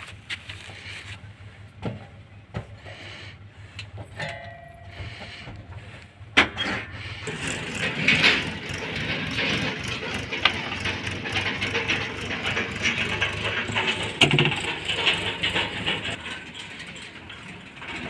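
Mechanical clattering and rattling from a JCB 3DX backhoe loader. It is fairly quiet with scattered clicks at first, then turns much louder and denser after a sharp knock about six seconds in, and eases off near the end.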